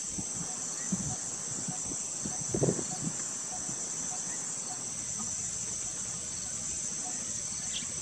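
Steady high-pitched insect chorus, like crickets, trilling without a break. A few brief low bumps stand out about a second and two and a half seconds in.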